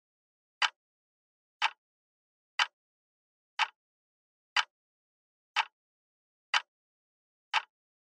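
Clock ticking sound effect: one short, sharp tick each second, eight in all, with silence between the ticks.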